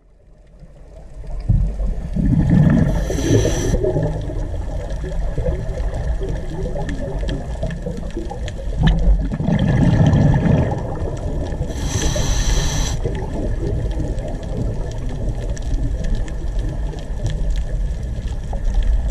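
Underwater sound of a scuba diver breathing through a regulator: a steady low rumble of water, two gurgles of exhaled bubbles about two and ten seconds in, and two short hisses of inhalation about three and twelve seconds in.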